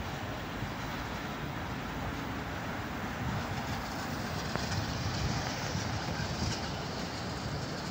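Sentosa Express monorail train running past on its elevated track, a steady rumbling noise that grows louder about three seconds in.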